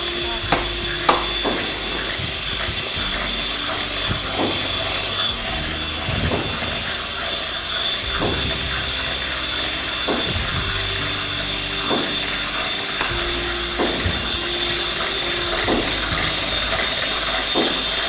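Anex electric hand mixer running steadily, its beaters whirring through creamed butter and icing sugar as eggs are beaten in one at a time. Occasional light knocks sound throughout.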